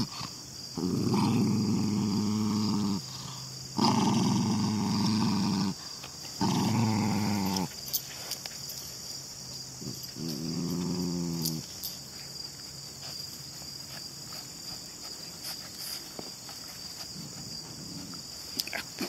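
A small Chihuahua-type dog growling in four long growls, the last one fainter, about ten seconds in. Crickets chirp steadily behind, and after about twelve seconds only the crickets are left.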